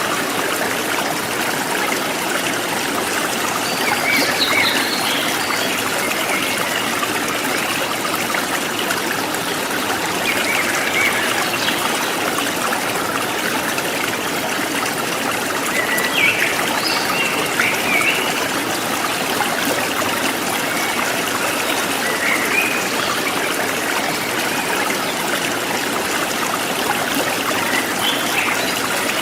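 A stream flowing and trickling over stones, with birds chirping now and then above the water.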